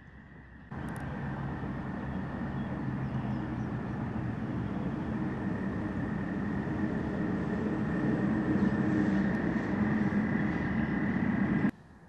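Steady engine noise with a low hum, growing slowly louder, then cut off suddenly near the end.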